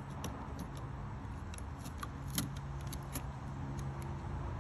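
Fingernails picking at and peeling a sticker off a plastic jug cap: small scattered clicks and scratches, the sharpest about halfway through, over a steady low hum.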